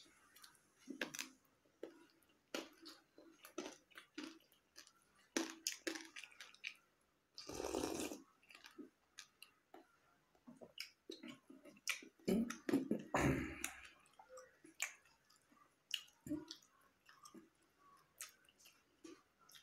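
Close-up eating sounds: chewing with short wet mouth clicks and smacks of rice and boiled egg eaten by hand, and two longer noisy bursts, about eight seconds in and again near thirteen seconds.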